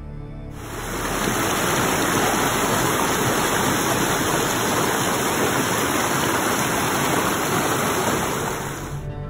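Whitewater rushing over rocks in a stream: a steady, loud rush of water that starts abruptly about half a second in and cuts off just before the end.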